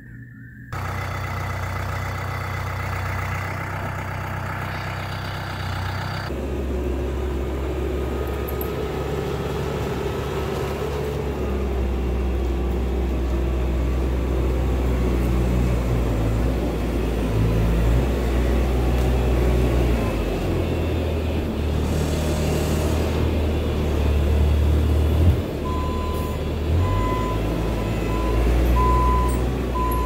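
Bobcat T650 compact track loader's diesel engine running as the machine manoeuvres on its tracks, the engine note shifting up and down. Near the end its backup alarm beeps about once a second.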